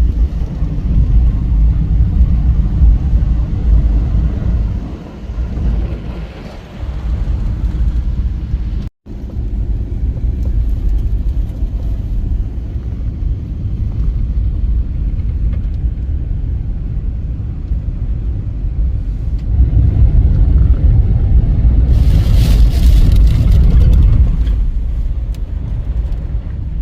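1999 Isuzu Trooper driving: a steady low road and engine rumble, broken by a short cut about nine seconds in, with a rushing hiss swelling briefly near the end.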